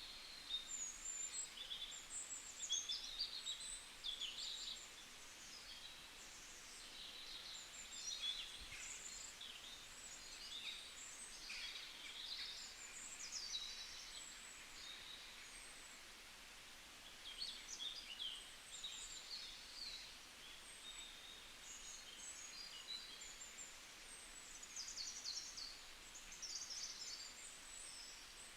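Forest ambience of many small birds singing and chirping, short quick trills and twitters coming in clusters over a faint steady hiss.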